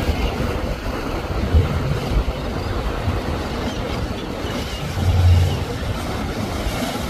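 Large motor yacht running at speed through choppy water: a steady engine rumble mixed with the rush of spray and waves, with louder low surges about a second and a half in and again around five seconds in.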